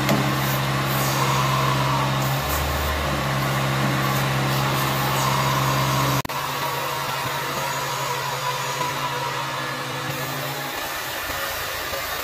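Hot water extraction carpet-cleaning machine running steadily, its vacuum hose and hand tool sucking with a constant hum and hiss. The sound changes abruptly about six seconds in to a slightly quieter steady hum with a faint whine.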